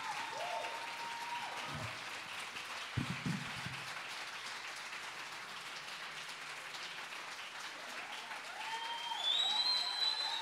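Audience applauding, with voices calling out and cheering at the start and again, louder, from about eight seconds in.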